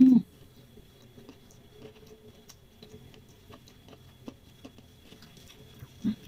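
Eating sounds: faint scattered clicks and crackles of crispy fried noodles being handled and chewed. A short hummed voice sound at the start and a brief one near the end.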